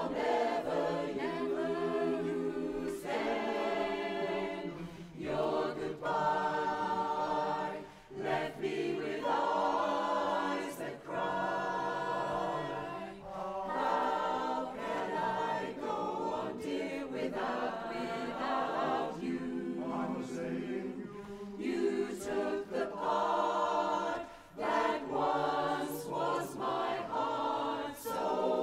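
Mixed-voice barbershop chorus singing a cappella in close four-part harmony, in sung phrases broken by brief pauses.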